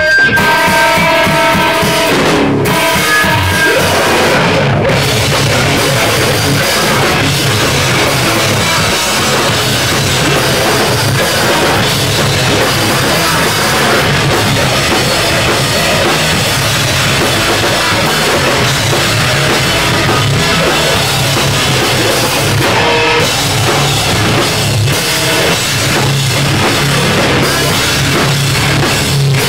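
Live heavy rock band playing loud in a small room: electric guitars, bass and a drum kit with cymbals. A few held guitar notes ring out over the first couple of seconds.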